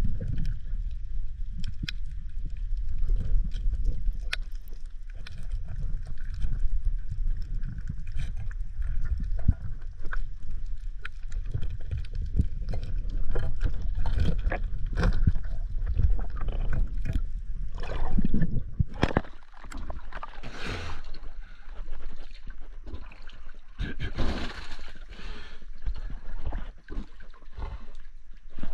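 Water churning and gurgling around an underwater action camera in shallow breaking surf: a steady low rumble with many small clicks and crackles, and a few louder rushing bursts in the second half.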